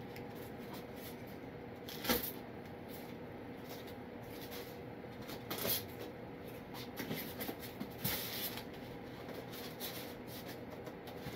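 Handling of packaging: a clear plastic bag rustling and crinkling and styrofoam packing pieces rubbing as they are lifted, with sharper crackles about two, six and eight seconds in.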